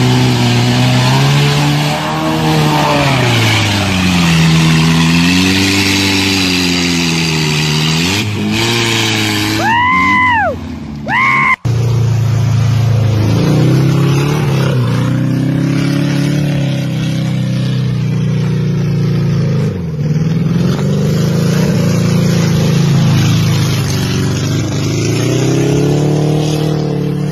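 Volkswagen Beetle engines revving hard, the pitch rising and falling again and again as the cars are driven through mud. Around ten to eleven seconds in, two brief high whines rise and fall. Just before twelve seconds the sound breaks off for an instant, and another Beetle's revving takes over.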